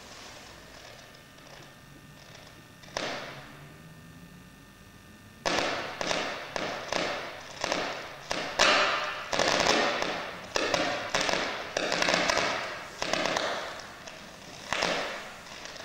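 Battery-powered sound sculpture in a bucket, built around a mummified mouse, giving off sharp crackling scrapes: one about three seconds in, then a run at about two a second from halfway through, each dying away quickly.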